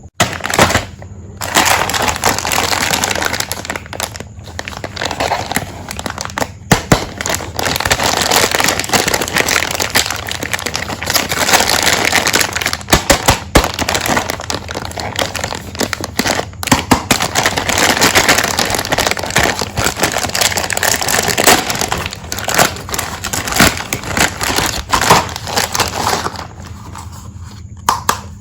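Plastic packaging of a miniature toy tea set crinkling and crackling as it is handled and opened, with many sharp clicks; it dies down near the end.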